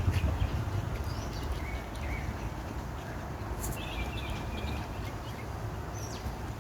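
Outdoor ambience: a steady low rumble with a few faint, short, high-pitched chirps scattered through it.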